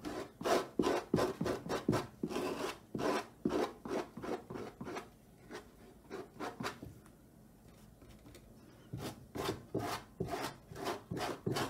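Palette knife scraping cold wax and oil paint across a gritty sand-and-gesso textured panel in short repeated strokes, about two a second, with a pause of a few seconds past the middle before the strokes resume.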